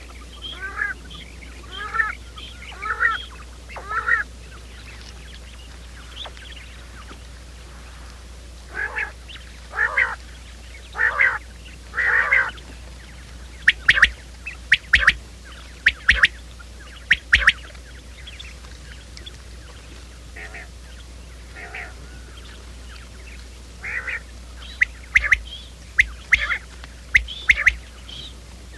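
Quail calling: short calls in groups of three or four, then runs of sharp, clipped notes in the middle and again near the end, over a steady low hum.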